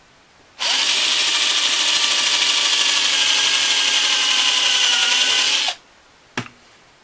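Electric drill spinning up about half a second in and boring into a wooden board for about five seconds, its whine dipping slightly under load before it stops. A single sharp knock follows about a second later.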